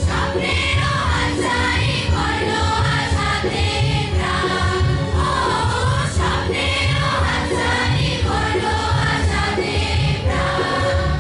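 Music: a song sung by a group of voices over a steady low beat.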